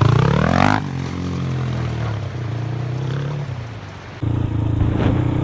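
Motorcycle engine revving up for under a second, then running on with its pitch slowly falling as it slows. About four seconds in the sound cuts abruptly to a steadier engine note.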